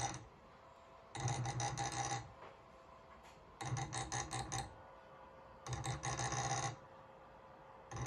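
Stepper motor turning the turntable in short moves: a buzzing whine over a low hum, each move lasting about a second and starting and stopping roughly every two seconds, three times over, with a fourth beginning near the end.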